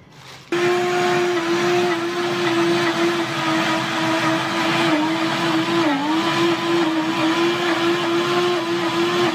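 High-speed blender switching on suddenly about half a second in and running steadily, grinding baked almonds for nut butter. The motor's whine holds one pitch, dipping briefly about six seconds in.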